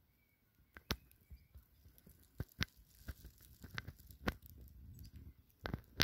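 Irregular sharp clicks and crackles, about ten of them, starting about a second in, over a faint low rumble.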